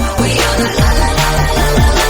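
Electronic dance music with a steady beat and bass, and a synth line that swoops up and down in pitch.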